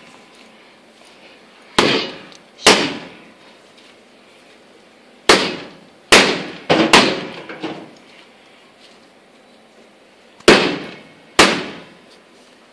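Soft bread dough being slapped down onto a granite countertop during kneading: loud, sharp slaps, mostly in pairs about a second apart, repeating every few seconds, each dying away quickly.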